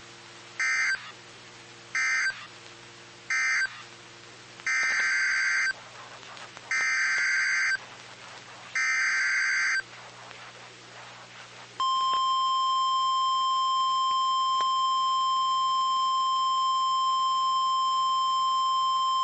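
Emergency Alert System data bursts from a NOAA Weather Radio broadcast. First three short end-of-message bursts about a second and a half apart, then three longer header bursts about two seconds apart, all with the same warbling digital screech. About two seconds after the last burst, the single steady high-pitched weather radio alert tone begins and holds.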